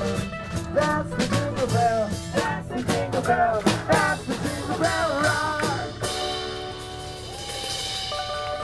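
Live acoustic band: a man singing with strummed acoustic guitar, holding one long note near the end.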